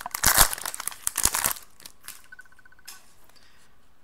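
Foil trading-card pack being torn open and crinkled by hand, a rapid run of crackling rips that stops about a second and a half in.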